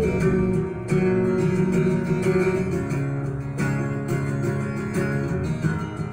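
Acoustic guitar strummed in a steady rhythm, an instrumental passage with no singing.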